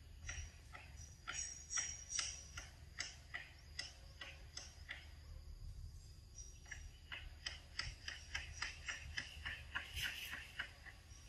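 A run of short, quick clicks. They come irregularly at first, then run evenly at about four a second for a few seconds. Faint high insect chirps come and go behind them.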